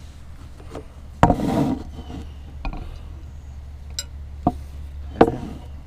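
Camp cookware being handled: a loud knock a little over a second in with a short rattle after it, then a few sharper knocks, the last near the end.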